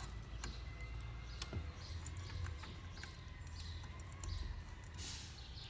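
Faint, scattered small clicks and light rattling as a ceiling fan's metal pull chain is fed through the hole in the switch housing.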